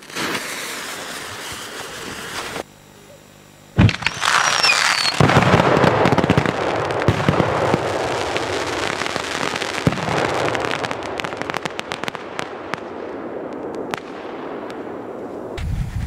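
A 200 mm (8-inch) aerial firework shell: the lit fuse hisses for a couple of seconds. About four seconds in a sharp bang goes off, and the shell bursts into dense crackling stars that keep crackling for about ten seconds, slowly thinning out. Near the end wind rumbles on the microphone.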